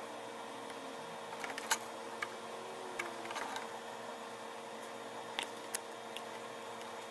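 Light clicks and taps of a speaker crossover circuit board, with its copper coils, being handled and set down on the bench, scattered over a steady hum.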